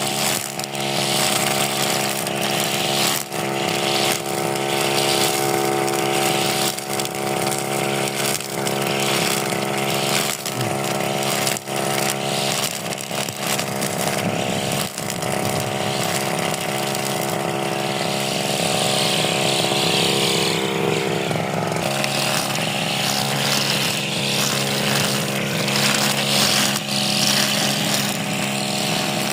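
Stihl two-stroke grass cutter engine running steadily under load while cutting grass, with a slight change in engine note about two-thirds of the way through.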